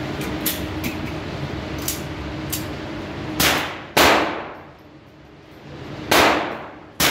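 Four gunshots echoing through an indoor shooting range, fired from another lane while this shooter is at his bench. Two come about half a second apart in the middle and two about a second apart near the end, each ringing out for about a second.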